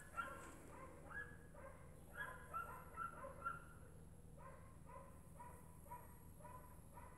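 A dog barking faintly and repeatedly: a few irregular barks at first, then a steady run of about two barks a second.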